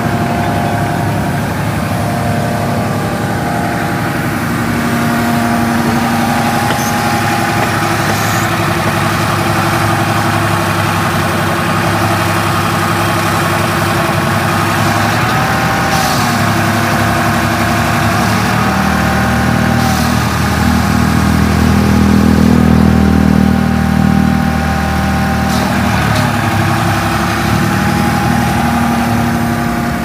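Backhoe's diesel engine running steadily, with a higher whine that rises and falls in pitch now and then. The engine grows louder and heavier for a few seconds about two-thirds of the way through, as if it is working under load.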